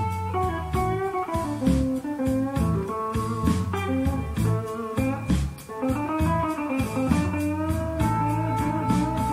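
Guitar-led blues music played back through Tandberg Studio Monitor speakers driven by a Willsenton R8 valve amplifier.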